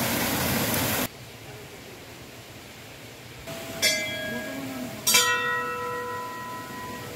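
Water pouring from a row of spouts into a stone channel, a steady splashing rush that cuts off about a second in. Then hanging brass temple bells are struck twice, about a second apart; each clangs and rings on with several steady tones, fading slowly, the second strike louder.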